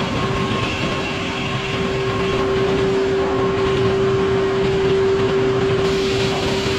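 Sawmill running steadily with a strong, steady whine that swells through the middle, as the saw cuts through a poplar log.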